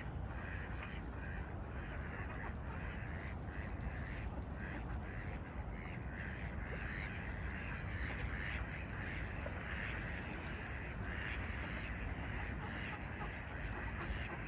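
A flock of birds calling continuously, many short harsh calls overlapping into a steady chatter, over a low steady rumble.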